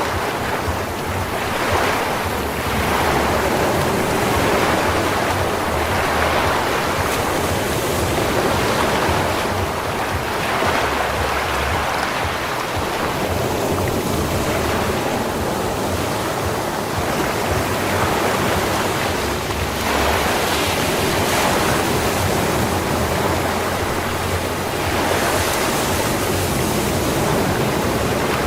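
Sea waves breaking and washing up on a sand beach, a steady rush of surf that swells and eases every few seconds.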